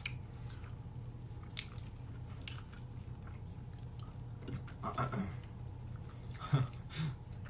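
Chewing and small mouth sounds of someone eating food taken with chopsticks, with scattered light clicks and crunches.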